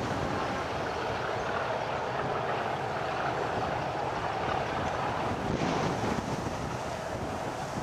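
Steady wind noise buffeting the microphone.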